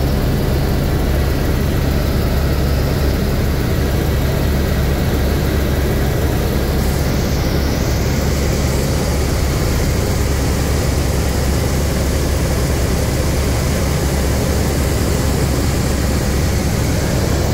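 Airbus H125 (AS350 B3 Ecureuil) single-turbine helicopter in cruise flight, heard from inside the cabin: a loud, steady low drone of the main rotor and Arriel 2B turboshaft engine.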